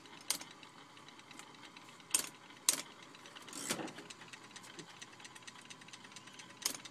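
IBM Executive electric typewriter typed on slowly: five single key strikes, each a sharp clack, spaced about half a second to three seconds apart, with a longer, fuller clunk near the middle.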